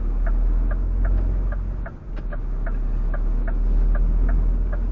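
Lorry engine running at low speed, heard inside the truck cab, with the turn-signal indicator ticking about twice a second. The engine sound dips briefly about two seconds in.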